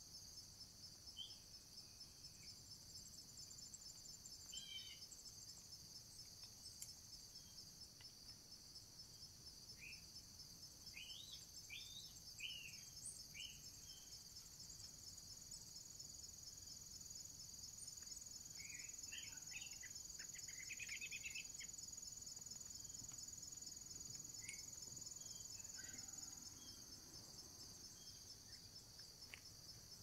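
Steady high-pitched chorus of crickets and other insects in late summer. Scattered short bird chirps sound over it, with a cluster of them about two-thirds of the way through.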